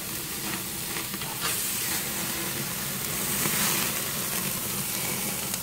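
Burgers and sausages sizzling on a grill over flaring flames, a steady sizzle with a few faint crackles as the fat burns and the meat chars.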